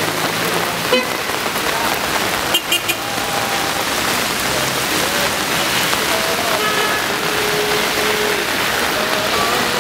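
Heavy rain pouring onto a paved street, a steady hiss, with cars driving along the wet road. A sharp knock about a second in and three quick knocks at about two and a half seconds stand out above the rain.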